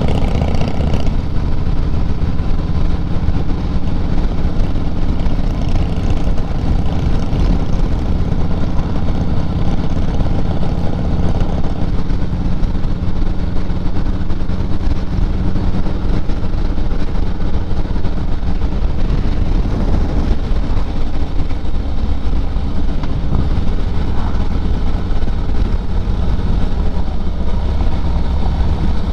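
A vehicle underway on the road: its engine drones steadily under continuous road and wind noise, and the engine note changes about two-thirds of the way through.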